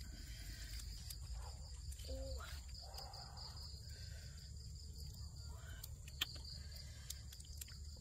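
Steady, high, unbroken chorus of crickets. A few sharp clicks cut through it, the loudest about six seconds in.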